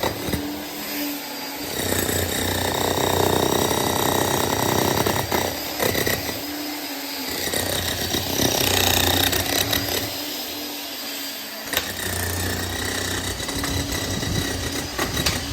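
Jackhammer running and hammering, with brief lulls where it eases off, about a second, seven seconds and eleven seconds in.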